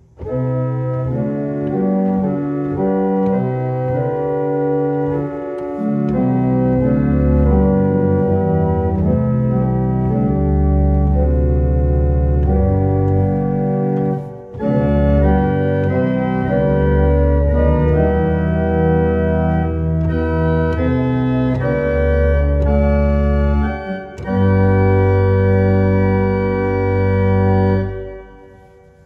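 1890 Roques pipe organ played on its first manual, sustained chords building as stops are added in a crescendo, with deep bass notes joining about six seconds in. After a brief break about halfway through it plays at full first-manual tutti, and it ends on a held chord that stops shortly before the end.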